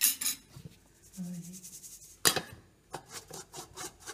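Metal mesh sieve being shaken and rubbed over a steel bowl to sift wheat flour: irregular scraping, rasping strokes, the sharpest a little over two seconds in.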